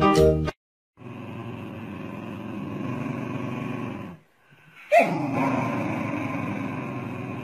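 Two dogs growling as they tug at a plush toy, a steady rough growl that breaks off briefly, then a sharp yip falling in pitch about five seconds in, with the growling going on after it.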